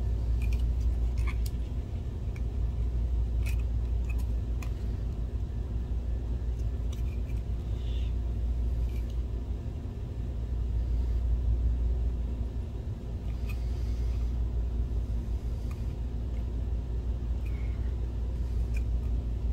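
Steady low rumble throughout, with a few faint clicks and taps from a plastic blower fan housing being handled and prised at.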